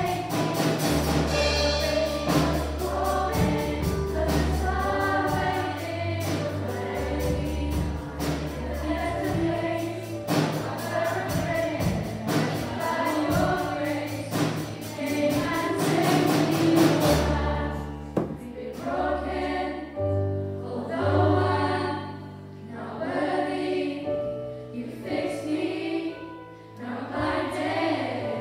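A mixed school choir singing a gospel-style song over instrumental accompaniment with a steady beat. About two-thirds of the way through, the beat drops out and the choir carries on over a sparser low accompaniment.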